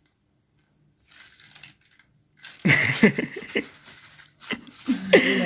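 Paper shopping bag and paper receipt rustling and crinkling as they are handled, with brief voice sounds mixed in, loudest about halfway through and again near the end.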